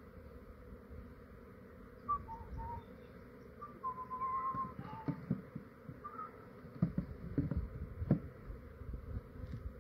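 A honey bee swarm buzzing steadily around a swarm trap box. A bird chirps with short whistled notes a few seconds in, and a few knocks come near the end as the box's lid is handled and set on.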